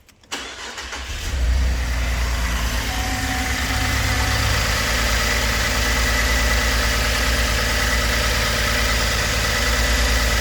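Holden Commodore VE V6 engine starting up in the first second or so, then idling steadily with an even low pulse. The car has a random-misfire fault (P0300), and the engine is shaking at idle.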